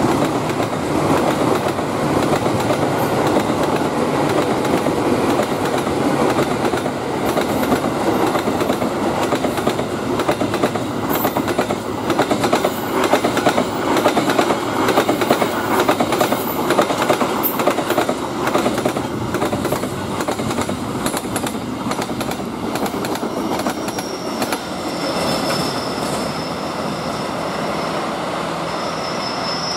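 Trains passing close by: steel wheels rumbling and clattering over the rails in a fast run of clicks, loudest through the middle. Near the end a thin, steady, high-pitched wheel squeal comes in.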